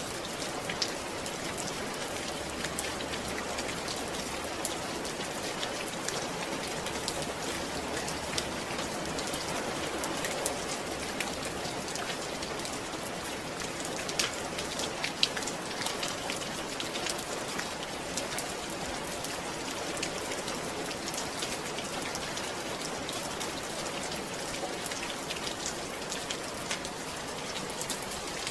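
Steady rain falling, with many separate drops pattering and ticking on a hard surface.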